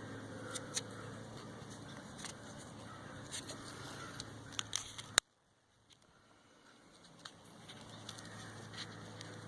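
Faint handling noise: scattered small clicks and rustles of sandpaper and a rubber band being worked onto a screwdriver handle, over a low steady hum. About halfway there is one sharp click, after which the background drops away almost to silence for a second or two and slowly comes back.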